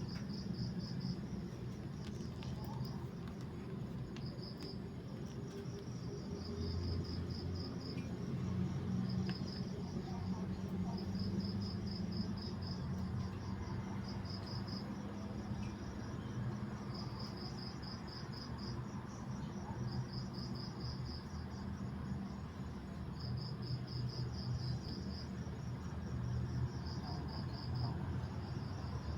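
Crickets chirping in short, rapid pulsed trills, repeated every second or two, over a steady low rumble.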